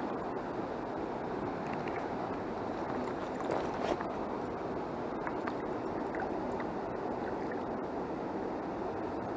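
A small river running steadily after heavy rain, its water rushing and gurgling over the stream bed, with small splashes scattered through.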